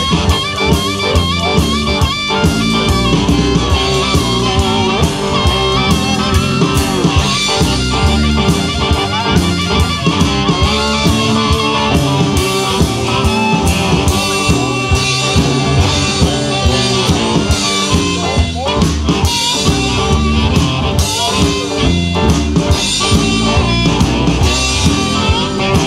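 Live blues band playing: amplified harmonica over homemade cigar box guitars and a drum kit keeping a steady beat.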